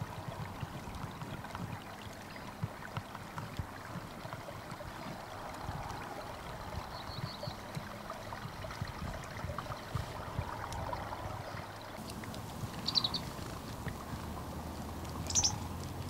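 Water lapping and trickling at a river's edge, with a few short bird chirps: one about seven seconds in and two louder ones near the end.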